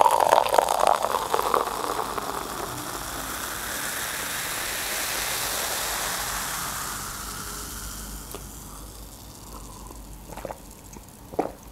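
Carbonated watermelon drink poured from a glass bottle into a glass, gurgling for the first couple of seconds, then the bubbles fizzing in a hiss that swells and slowly fades. Near the end a few short sips from the glass.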